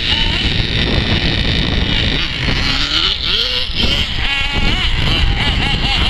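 Wind buffeting the microphone over the motors of radio-controlled off-road cars running on a dirt track, their pitch rising and falling as they accelerate and brake.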